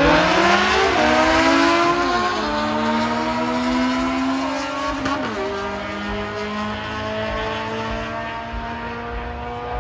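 Race car engine accelerating hard on a drag-racing pass, its note climbing and dropping back at gear shifts about one, two and a half, and five seconds in. The sound slowly fades as the car pulls away.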